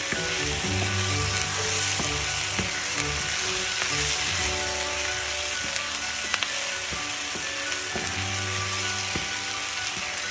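Diced onions and bell peppers sizzling in oil in a frying pan while being stirred with a wooden spoon, with a few light taps of the spoon on the pan. Soft background music plays underneath.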